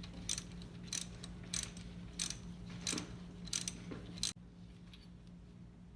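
Hand ratchet wrench clicking in quick back-and-forth strokes, about seven strokes at an even pace of roughly one and a half a second, which stop abruptly a little after four seconds. A steady low hum runs underneath.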